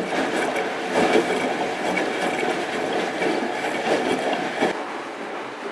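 Front-loading washing machine in its wash cycle: the drum turning with wet, soapy clothes tumbling and water sloshing against the door, a rhythmic churning rumble that thins out near the end.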